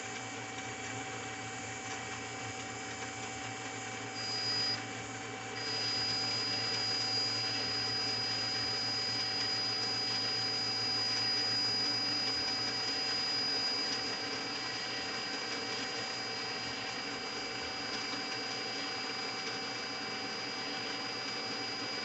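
Machine-shop lathe setup running steadily with a high electric-motor whine, the cross slide driven by an electric drill. The whine cuts out briefly about five seconds in, then resumes a little louder.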